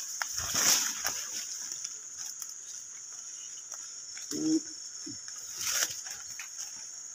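Steady high-pitched insect drone of forest cicadas or crickets, with two brief rustles of leaves and stems brushing as someone pushes through undergrowth, and a short low vocal sound about four and a half seconds in.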